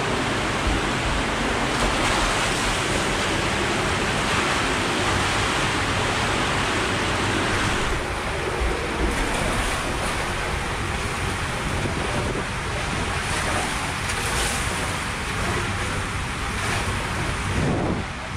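Steady rushing of water and air inside an enclosed tube water slide as a rider slides down it, with a low rumble of wind buffeting the body-worn camera's microphone.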